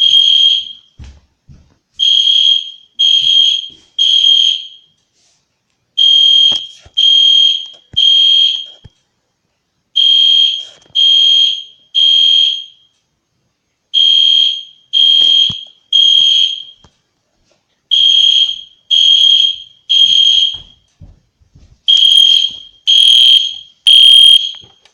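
EST Genesis ceiling-mount fire alarm horn sounding loudly in the temporal-three evacuation pattern: three short high-pitched horn blasts, a pause, then three more, six groups in a row.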